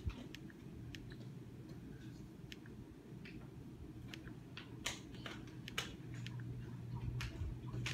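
Scattered light clicks, roughly one a second, from a TV remote's buttons as the recurring "process has stopped" error dialog is dismissed, over a low steady hum that gets louder about six seconds in.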